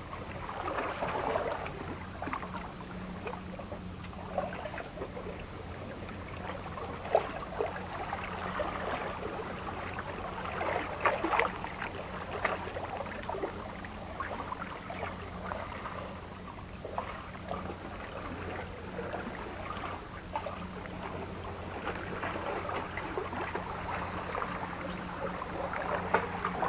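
Sea water washing against breakwater rocks over a steady low engine-like hum, with scattered small knocks and clicks.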